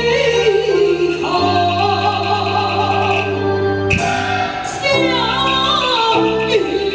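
Taiwanese opera (gezaixi) aria sung into a microphone over amplified accompaniment, with long held bass notes under the wavering vocal line and a high melodic instrument line. A single sharp hit falls about four seconds in.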